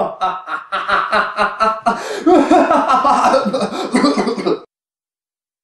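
A person's voice chuckling and laughing in quick, rhythmic bursts, loud, then cut off suddenly about four and a half seconds in.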